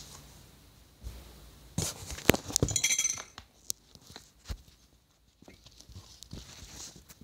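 Handling noise from a phone being picked up and operated: a dense cluster of sharp clicks, knocks and light clinks about two to three seconds in, then scattered single clicks and faint rustling.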